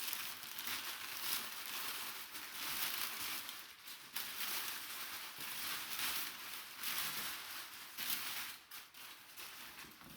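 Packaging crinkling and rustling as it is handled and torn open, with an uneven, continuous crackle.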